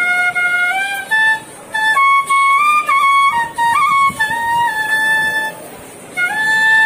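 Background music: a solo wind-instrument melody of held notes that slide between pitches, with a pause shortly before the end.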